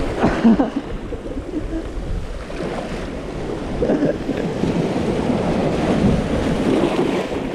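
Sea waves surging and washing around the shore rocks, with wind buffeting the microphone.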